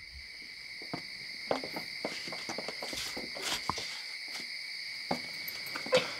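Crickets chirping in a steady high drone, with scattered soft knocks and rustles throughout and a sharper knock near the end.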